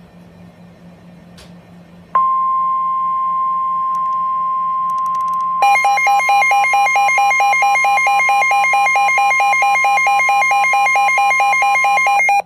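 Emergency alert tones for a severe thunderstorm warning: a steady NOAA Weather Radio 1050 Hz warning alarm tone starts about two seconds in over a faint low hum. A few seconds later a second, fast-alternating alert tone joins it, and both cut off together near the end.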